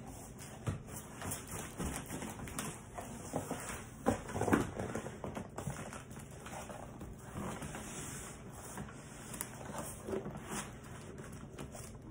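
Cardboard shipping box being handled and its flaps pulled open: irregular scraping, rustling and knocking of cardboard, busiest about four seconds in.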